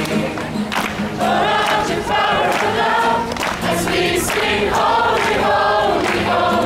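A large crowd singing a song together in unison, clapping along.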